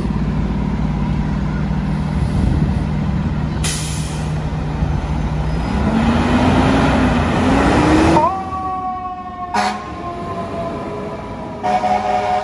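Fire engine's diesel running at idle, with a short air hiss about four seconds in. Its siren then winds up as the truck pulls away. From about eight seconds a high siren tone sounds, slowly falling, broken by short horn blasts near the end.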